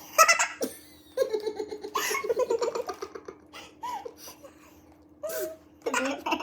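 Two people laughing and giggling in short bursts, loudest over the first few seconds and again near the end.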